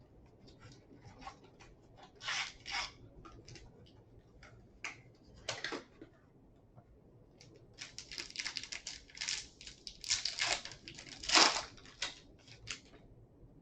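A sealed mini box of trading cards being opened by hand: plastic overwrap crinkling and tearing, with cardboard handled, in a series of short rustles and crackles that grow busier and louder in the second half.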